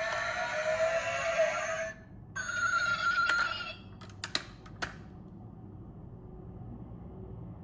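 Electronic tones: a pitched sound with a slight slide that cuts off about two seconds in, then a steady higher tone for about a second, followed by a few sharp clicks.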